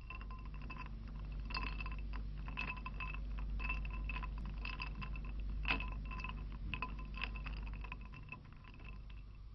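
Small chimes tinkling with many light, irregular strikes that ring on two clear pitches, over a steady low hum.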